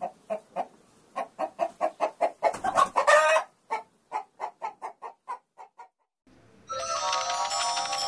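A chicken clucking in a quick run of short clucks, about four a second. They build to a loud, drawn-out squawk about three seconds in, then taper off and stop. Music comes in near the end.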